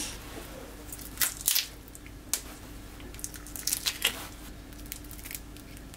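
Raw shrimp being peeled by hand: the thin shells crackle and squish as they are pulled off the body, in a handful of short, scattered crackles spread over several seconds.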